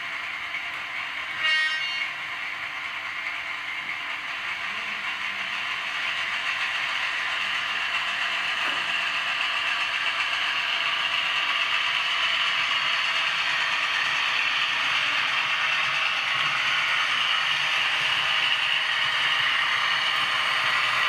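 A model of the DB V200 diesel locomotive running along model railway track, its motor, gears and wheels giving a steady whirring, rattling noise that slowly grows louder. About a second and a half in there is a short horn blast.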